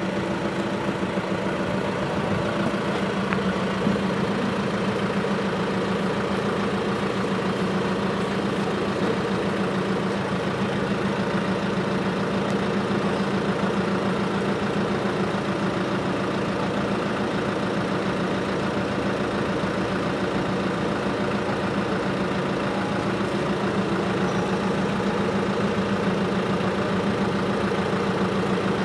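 A large truck's diesel engine idling steadily, a constant low hum with a fine rapid pulse.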